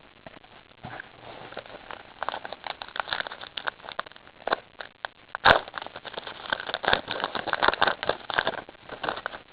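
Crinkling and crackling of a trading-card pack's foil wrapper being torn open and the cards handled, with a sharp click about five and a half seconds in.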